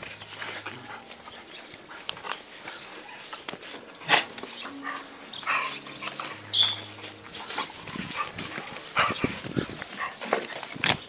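American Pit Bull Terrier puppies playing with adult dogs: scattered short yips and growls mixed with scuffling.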